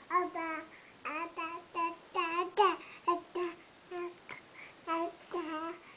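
Baby babbling and cooing: about a dozen short, high-pitched syllables with brief pauses between them, some sliding up and down in pitch.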